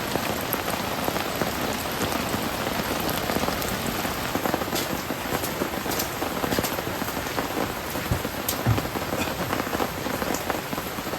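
Steady rain falling, with scattered single drops landing louder on top of the patter.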